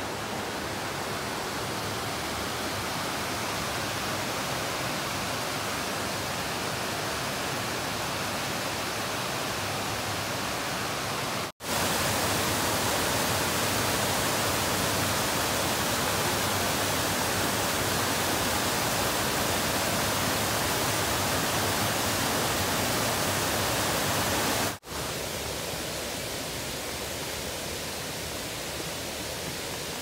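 Rushing water of a waterfall, a steady dense hiss with no lulls. It drops out for an instant about a third of the way in and comes back louder, then drops out again near the end and returns softer.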